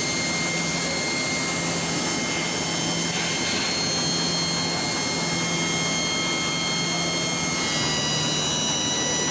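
Hydraulic pump of a truck's loader bed running steadily under load as the bed operates, a constant hum with a high whine; the whine shifts slightly in pitch about eight seconds in.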